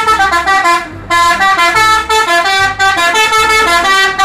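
Indonesian tour bus's multi-tone musical 'telolet' horn playing a quick melody of stepped notes, with a short break about a second in.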